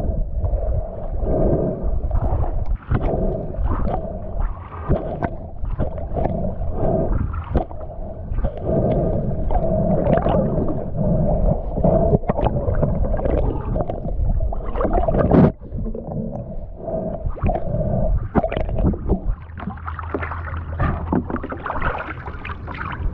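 Muffled underwater sound picked up by a camera beneath the surface: water rushing and gurgling past the housing, with irregular knocks and clicks. A steady low hum comes in near the end as the camera rises along the boat's hull.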